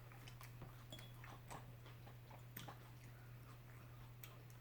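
Near silence: faint, scattered mouth and chewing clicks of someone eating, over a steady low hum.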